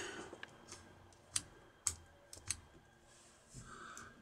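Faint, sharp clicks, about six of them over the first two and a half seconds, from rocker switches on a boat's dashboard light panel being flipped.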